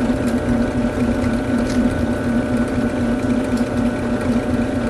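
Benchtop drill press running with a steady hum, its large spade bit boring through a white PVC board.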